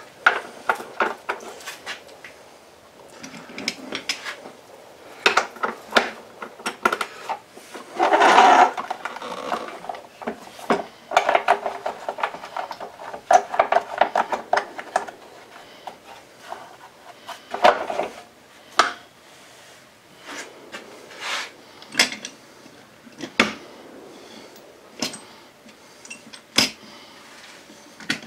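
Metal hand tools clinking and knocking against the housing of a Stihl TS400 cutoff saw during reassembly. About halfway through, a ratchet wrench clicks in a quick run for a couple of seconds.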